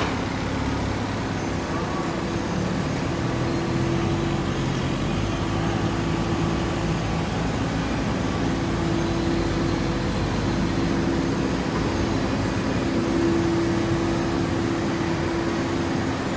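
Hydraulic baling press running: a steady machine hum and noise with a couple of held tones that fade in and out.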